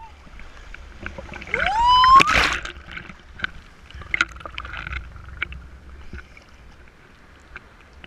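Sea waves washing over an action camera held at the water surface. About two seconds in a voice gives a rising yell as a wave breaks over the camera in a loud splash, followed by sloshing water and scattered small splashes.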